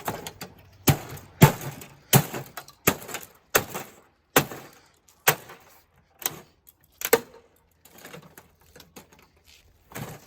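Sharp knocks and snaps from the plastic and metal parts of a TV being pulled apart by hand, about one a second, thinning out near the end.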